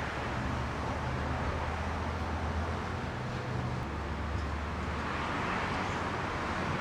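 Street traffic: a vehicle engine's low hum with road noise, swelling as a vehicle passes near the end.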